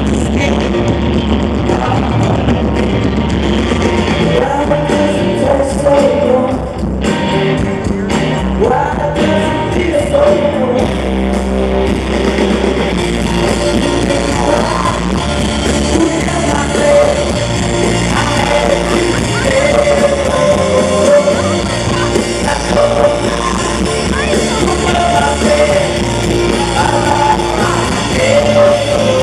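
Live rock band playing loudly, a lead singer over electric guitars and bass, heard from within the crowd.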